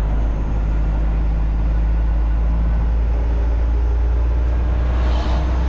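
Semi-truck diesel engine running steadily under way, a loud, even, deep drone.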